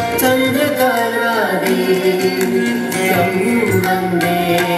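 Carnatic music for a Bharatanatyam dance: a steady rhythm of hand-drum strokes under a melodic line that slides in pitch.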